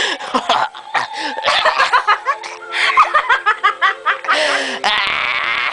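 People laughing in bursts of giggles and snickers. A steady held tone sounds under the laughter from about two seconds in until near the end.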